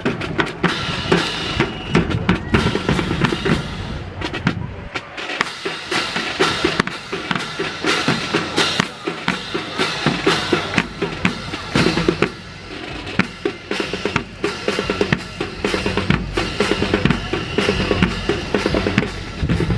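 Marching drum corps playing a drum cadence on snare and bass drums, with dense rapid strokes throughout.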